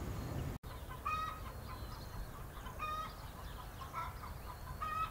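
A chicken clucking: four short calls spaced a second or two apart, over quiet background.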